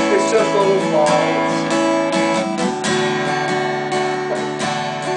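Acoustic guitar strumming chords in an instrumental passage between sung lines of the song.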